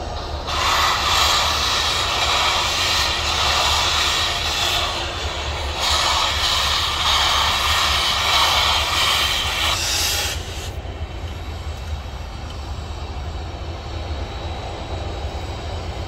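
Steam whistle of Union Pacific 4014, the Big Boy steam locomotive, blown in two long blasts of about five seconds each, over the steady low rumble of the passing train.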